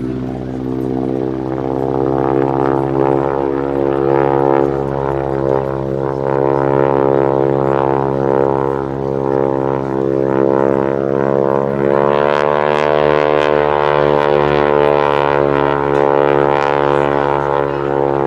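North American Harvard AT-6's Pratt & Whitney R-1340 Wasp nine-cylinder radial engine and propeller droning loudly and steadily in a display pass. The pitch rises slightly about twelve seconds in, then eases back down a few seconds later.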